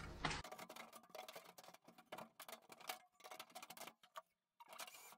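Faint, irregular clicks and light taps as the sheet-metal rear panel of a washing machine is fitted back over the drum pulley.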